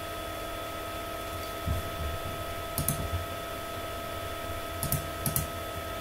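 A few short clicks of computer input, in small clusters about two, three and five seconds in, over a steady electrical hum with thin steady tones.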